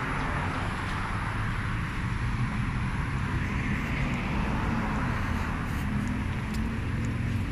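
Road traffic: a steady rush of passing cars over a low rumble.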